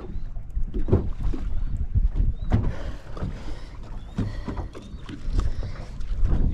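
Boat on open water: a steady low rumble of wind and water against the hull, with a few short knocks.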